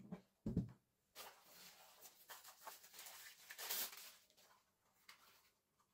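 Packaging crinkling and rustling as it is handled during an unboxing, for about three seconds, loudest near the end, after a short low sound about half a second in.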